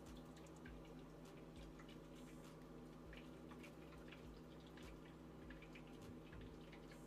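Faint small clicks and liquid sounds of a metal spoon stirring and scooping beef consommé in a plastic cup, over a steady low hum.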